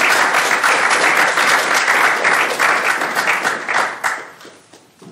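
Lecture audience applauding, steady clapping that dies away about four seconds in.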